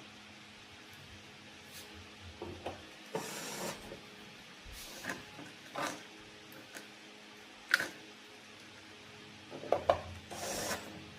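Intermittent clicks, taps and rubbing from tools and small parts being handled during electronics repair work, over a faint steady hum. The sharpest click comes about two thirds of the way in, with a cluster of knocks and rustling near the end.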